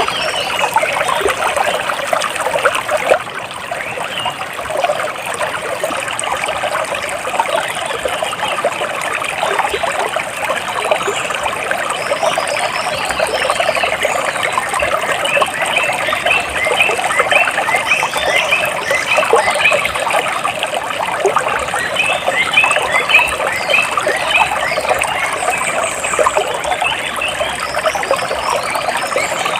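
Water splashing and trickling steadily. Runs of quick, high, repeated bird chirps come in over it about halfway through and again near the end.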